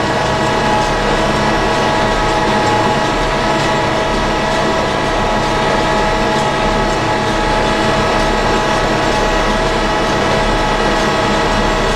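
Tractor running steadily under load, driving a Hesston 1265 sickle-bar mower-conditioner off its 540 PTO while cutting hay; a constant mechanical drone with a steady whine of gears over it.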